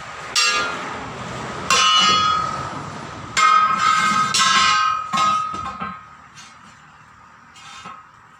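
Steel struck with a hammer: about five ringing, bell-like clangs over roughly five seconds, dying away near the end, as in hammering a truck wheel rim during tyre fitting.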